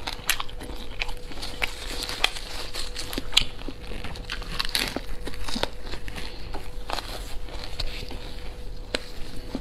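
Close-miked chewing and mouth sounds of someone eating smoked pork belly wrapped in a fresh leaf: irregular wet smacks and clicks, with leaf crinkling as the next bite is wrapped by hand.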